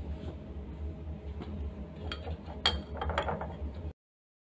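Glass test tubes clinking a few times against each other and the stainless-steel rack as they are handled, over a steady low hum. The sound cuts off abruptly near the end.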